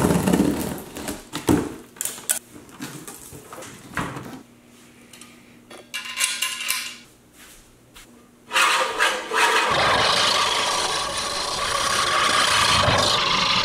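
Scattered knocks, clicks and cardboard rustles as a mower's box is cut open and its parts handled. About eight and a half seconds in, a steady whir starts suddenly: a Scotts 14-inch manual push reel mower cutting grass.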